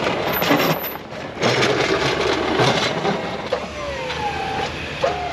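A pickup's snowplow blade scraping over hard-packed snow and shoving it up into a pile, with uneven crunching and scraping over the truck's engine running under load.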